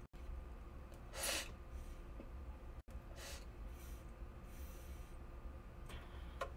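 A few soft, breathy puffs as a person draws air through a Yocan Dive electric nectar collector while its heated tip sits in concentrate; the loudest puff is about a second in.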